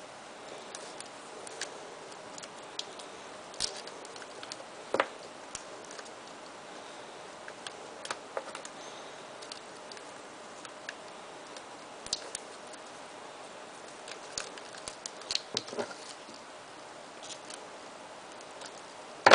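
Scattered light clicks and ticks from handling a chicken wire heart while wrapping tape over its wire edges, over a steady low background hiss.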